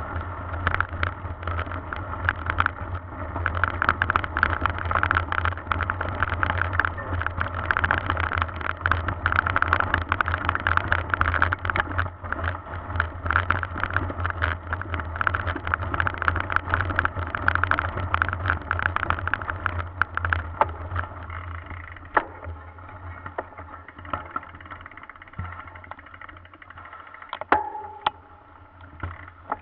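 Mountain bike riding over a rough dirt forest track, heard through a handlebar-mounted camera: a dense, continuous rattle and clatter of the bike and camera mount shaking over bumps, with a steady low rumble. It eases off about two-thirds of the way through, leaving a few separate knocks and a short squeak near the end.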